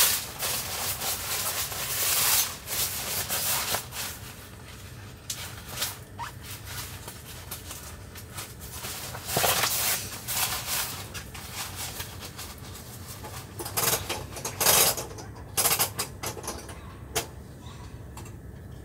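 Tent fabric rustling and swishing as a window panel of a Dometic HUB tent is rolled up by hand, in irregular bursts that come and go.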